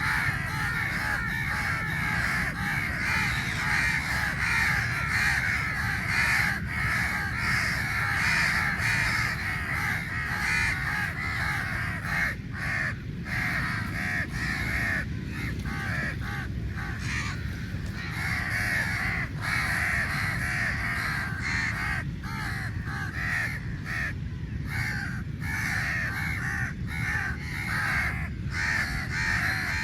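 A large flock of crows cawing continuously, many harsh calls overlapping, as they squabble over meat. A steady low rumble runs underneath.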